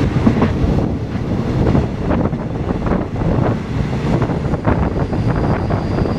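Express passenger train passing close by, a steady rumble with rapid clatter of wheels on the rails, and wind buffeting the microphone.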